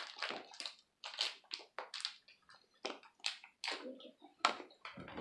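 Plastic toy wrapper crinkling as it is pulled open by hand, a run of short, irregular crackles.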